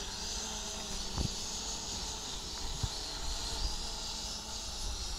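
Small quadcopter's brushed coreless motors and propellers whining as it hovers and is flown, with wind rumbling on the microphone.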